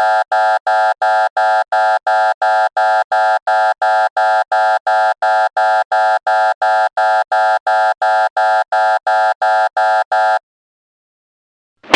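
Buzzer sound effect: one electronic buzzing tone, beeping on and off about three times a second, then stopping suddenly. A single loud, sharp hit follows near the end.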